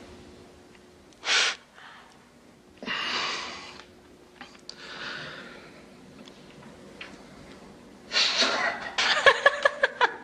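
A man's short, forceful breaths and exhales as he strains through bodybuilding poses. Then, about eight seconds in, a woman bursts out laughing in quick, choppy bursts, louder than the breathing.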